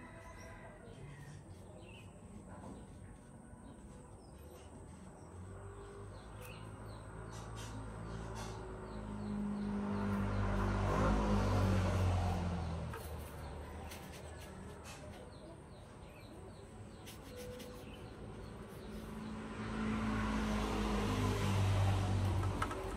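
Motor vehicles passing, a low engine rumble and road noise that swells and fades twice, about ten seconds apart.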